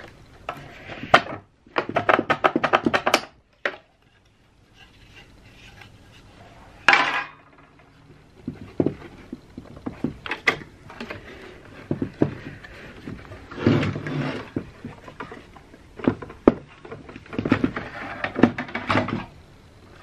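Hard plastic housing of a HandPunch GT-400 hand scanner being pried apart and handled: irregular clicks, knocks and scraping of plastic parts, with a few longer stretches of continuous scraping and rubbing.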